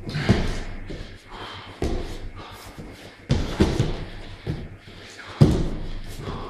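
A wrestler's body landing on a foam wrestling mat during solo grappling drills: four heavy thuds about a second and a half apart, each trailing off.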